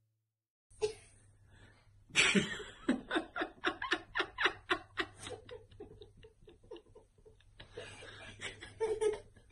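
A girl laughing hard in a quick run of short bursts, about three to four a second, starting about two seconds in and trailing off into quieter giggles near the end.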